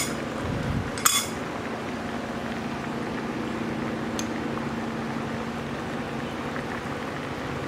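Fish braising liquid bubbling at a gentle simmer in a clay pot over low heat, a steady bubbling hiss. Two sharp clinks of crockery come right at the start and about a second in.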